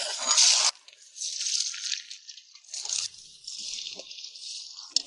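Water splashing and bubbling as large river snails are blanched, in uneven wet bursts with a few faint clicks, loudest in the first second.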